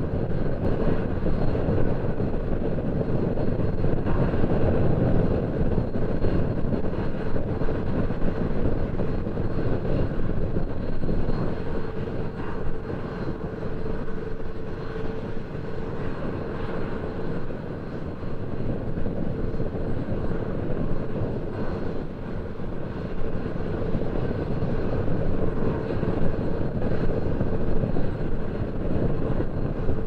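Boeing 787-8 Dreamliner's jet engines on final approach and landing: a steady drone with a held mid-pitched tone that fades away about two-thirds of the way through.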